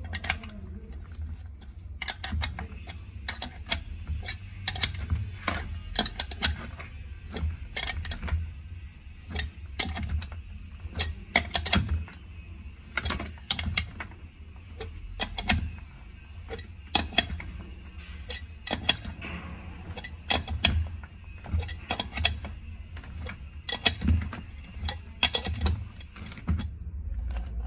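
Homemade bearing puller being tightened on an ATV gearbox casing: a wrench turns the nut on the threaded rod with many irregular metallic clicks and clinks, drawing the bearing out of its seat, over a low handling rumble.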